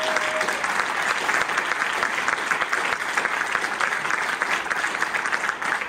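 People applauding, with steady, continuous clapping.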